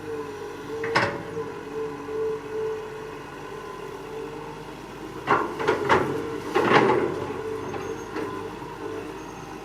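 Excavator running with a steady engine and hydraulic drone, with a sharp knock about a second in and a run of louder knocks and clunks a little past halfway as the machine works the ground.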